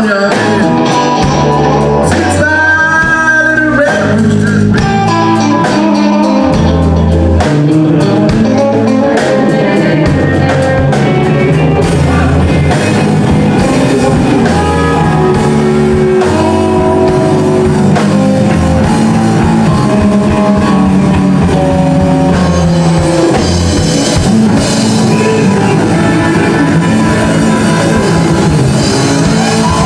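Live blues band playing: electric guitars over electric bass and a drum kit, steady and loud.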